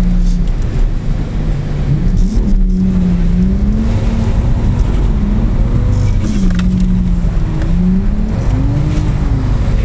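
Car engine heard from inside the cabin, its revs climbing and dropping several times as the car is drifted through corners on a wet track.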